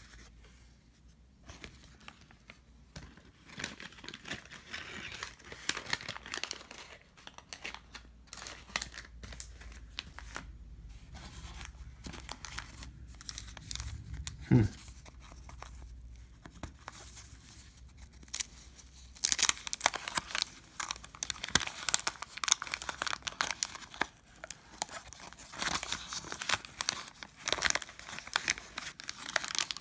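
Trading card packs being torn open and their wrappers crinkled by hand, a run of scratchy crackles that grows busiest in the last third. There is one sharp knock about halfway through.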